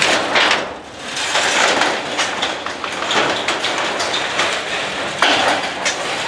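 Corrugated metal roofing sheets clattering and scraping as they are slid and moved about on a roof, with irregular metallic knocks and rattles.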